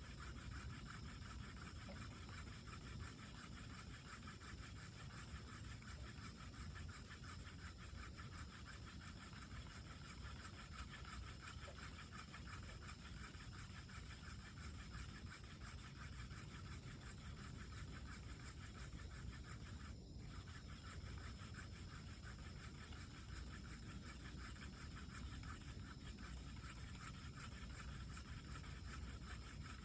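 Hand-drill fire-by-friction set: a wooden spindle spun back and forth between the palms in the notch of a hearth board, a steady faint rubbing of wood on wood and hands on the spindle. Light pressure, still only warming the board, not yet at ember-making pressure.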